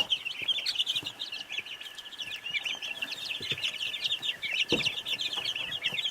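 A brooder full of young chicks and turkey poults peeping: many short, high peeps overlapping without a break. A single soft knock comes near the end.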